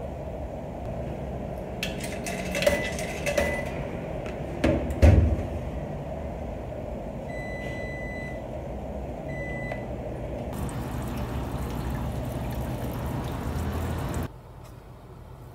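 Top-loading coin-operated washing machine being loaded and started: a few knocks and clicks of handling, the lid shut with a thump about five seconds in, then two short beeps as buttons on its control panel are pressed. A rushing hiss of water filling the drum follows and cuts off abruptly near the end, over a steady low hum.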